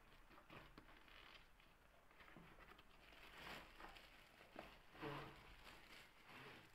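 Faint scraping and rustling of a long cardboard box being cut open with a snap-off utility knife, the blade dragging along the taped seam and the cardboard flaps scuffing, loudest about three and a half and five seconds in.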